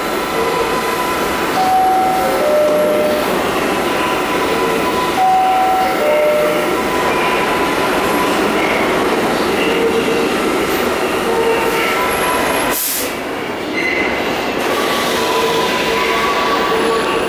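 New York City subway train noise in the station: a steady loud rumble with many short, high, squealing tones coming and going. There is one sharp clank about thirteen seconds in.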